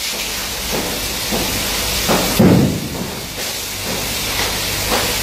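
A steady hiss at an underground mine face, with a low hum beneath it and a few dull thuds, the loudest about two and a half seconds in.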